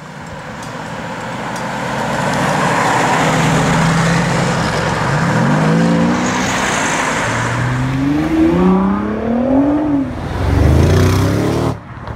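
A high-performance sports car engine accelerating hard. A rushing exhaust noise builds over the first few seconds, then the engine pitch climbs in several sweeps, dropping back between them at each upshift.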